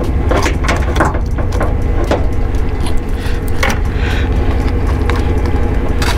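A blue crab's claw being twisted at the joint, with scattered sharp clicks and cracks of shell, most in the first two seconds, over a steady low rumble of wind on the microphone.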